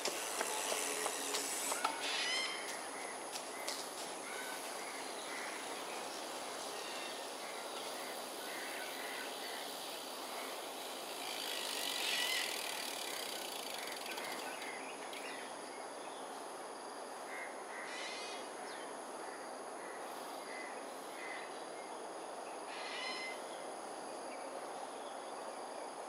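Birds calling around a roost tree: many short scattered calls and a few louder harsh calls, the loudest about twelve seconds in, over steady outdoor background noise and a constant thin high-pitched whine.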